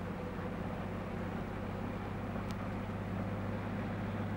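Michigan 675 wheel loader's diesel engine running steadily under load, a low drone with a strong hum. It cuts off abruptly near the end.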